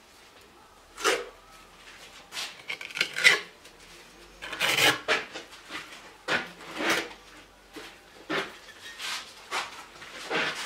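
Steel mason's trowel scraping and spreading mortar across red bricks in a series of short, irregular strokes.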